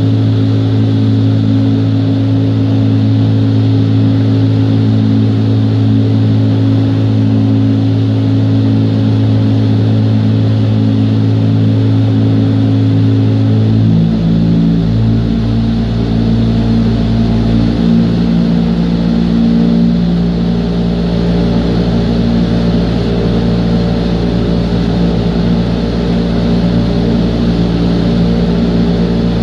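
Indoor skydiving wind tunnel's fans running loudly: a rushing airflow with a steady droning hum. About 14 seconds in, a deeper rumble comes in and the hum's pitch shifts, and it shifts again a few seconds later.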